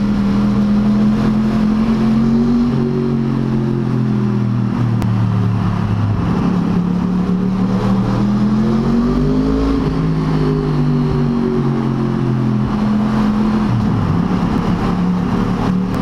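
Yamaha R1's inline-four engine through Yoshimura R77 exhausts with the baffles out, running at steady cruising revs inside a road tunnel. The pitch climbs gently about halfway through and eases back, with a short dip near the end.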